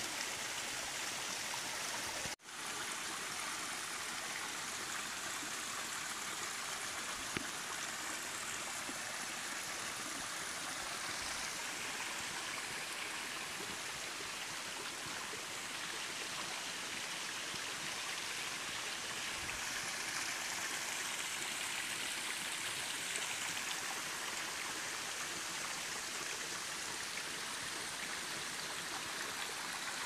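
Water running and splashing over rocks in a small forest stream, a steady rushing, with a momentary dropout in the sound about two seconds in.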